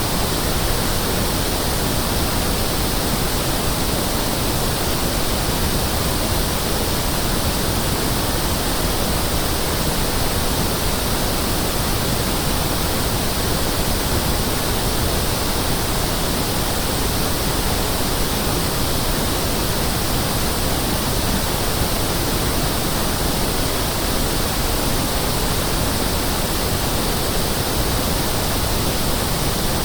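Pink noise test signal, as used for checking speakers and room acoustics: a steady, unchanging hiss spread evenly across the whole range from deep bass to the highest treble.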